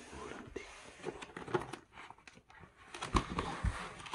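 Clear plastic air-column cushion packaging crinkling and rustling as it is handled and pulled away, with a few dull knocks about three seconds in.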